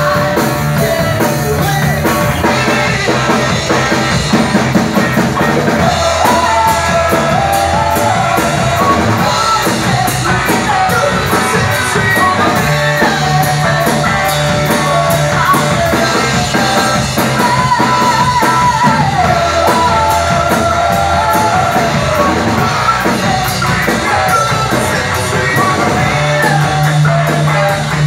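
Live rock band playing loudly: a woman singing into a microphone over electric guitar and a drum kit.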